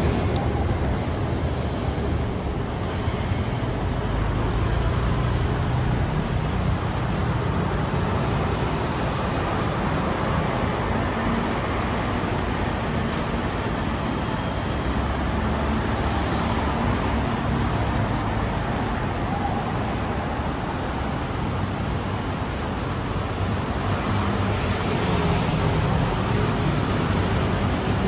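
Steady road traffic noise: cars and taxis driving past on the street.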